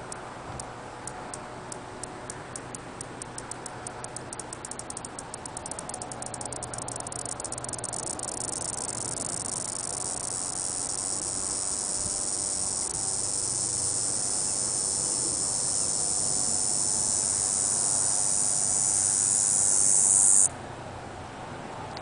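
Diceroprocta olympusa cicada starting its call. Separate high ticks, a couple a second at first, speed up over several seconds and merge into a continuous high buzz that swells steadily louder, then stops abruptly near the end.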